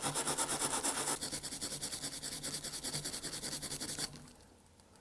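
Brass wire brush scrubbed rapidly back and forth over a diecast metal toy car base, about seven scratchy strokes a second, brushing off oxidation loosened by an acid soak. The scrubbing stops suddenly about four seconds in.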